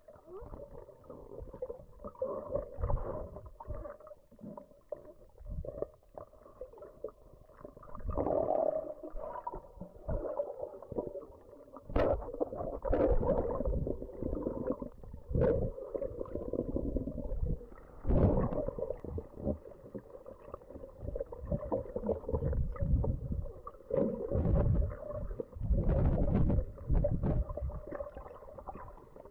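Muffled underwater water noise from a camera held under the surface while snorkelling: water swirling and sloshing in irregular surges every second or two, with a few sharp clicks.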